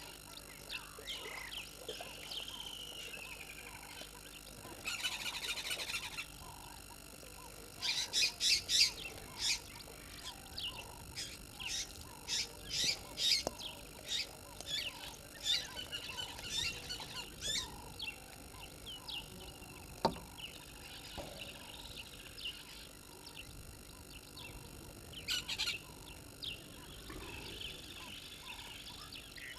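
Wild birds chirping and calling, several at once, with louder bursts of rapid trilling about five, eight and twenty-five seconds in.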